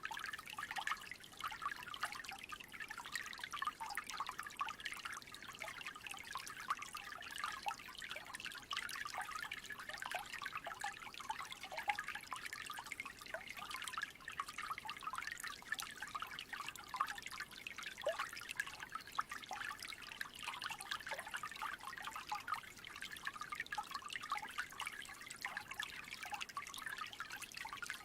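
A small creek trickling steadily: a dense, continuous patter of little splashes and gurgles.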